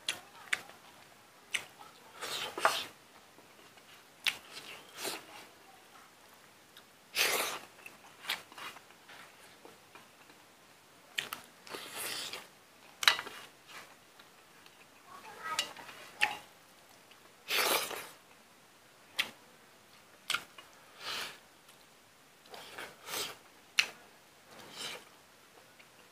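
Close-up eating sounds: a man chewing and smacking his lips on rice and pork, with his fingers scooping and scraping food on a steel plate, in short irregular bursts and clicks.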